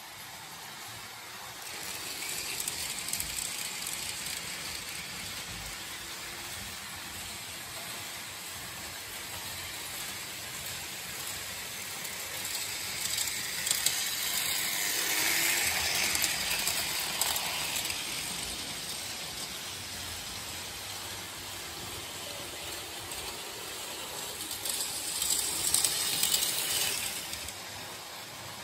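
Märklin HO model trains running on vintage metal M-track: a steady clatter of small wheels over the rails and rail joints, with a running hiss. It swells twice as trains pass close by, once around the middle and again near the end.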